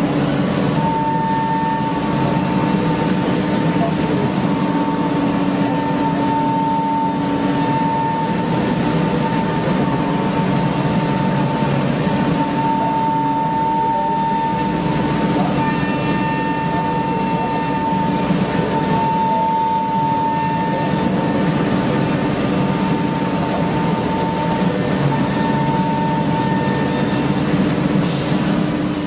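CNC machine running while machining an engine block: a steady high whine over a constant mechanical hum and cutting noise.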